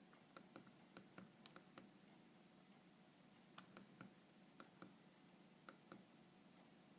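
Faint clicks of a Nokia 2610 mobile phone's keypad buttons being pressed, about a dozen presses in small irregular runs, over a quiet room hum.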